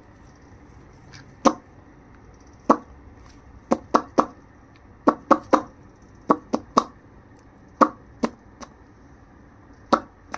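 A series of sharp, short taps, about fifteen over ten seconds at an uneven pace, some in quick pairs and triples.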